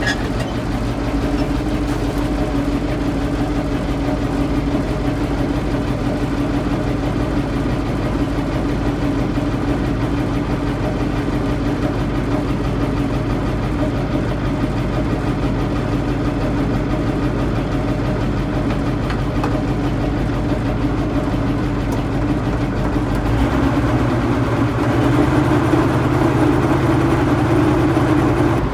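Massey Ferguson 1805's Caterpillar 3208 V8 diesel idling steadily, heard from the cab. Its note shifts and grows a little louder about 24 seconds in.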